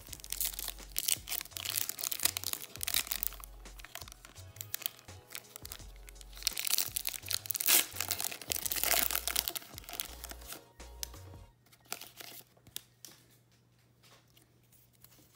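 Foil Pokémon TCG booster pack wrapper being torn open by hand, with dense crinkling and tearing of the foil that stops about eleven seconds in.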